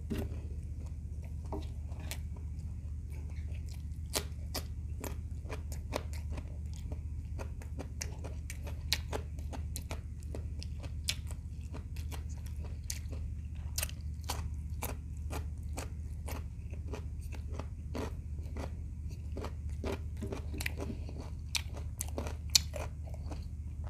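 Close-miked chewing and crunching of fried shrimp and raw vegetables, with many sharp crunches and mouth clicks scattered throughout, over a steady low hum.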